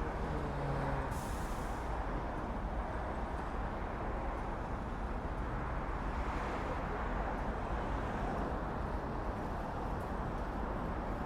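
Steady outdoor traffic rumble, with a coach's diesel engine running close by.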